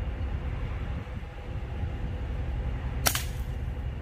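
A single sharp shot crack about three seconds in from a .22 Brocock Atomic XR PCP air rifle firing at an iguana in a tree, over a steady low background rumble.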